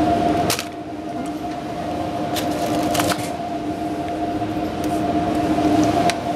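Steady two-tone hum of a supermarket's refrigerated display shelves, with a few knocks and clinks as plastic juice bottles are taken off the shelf.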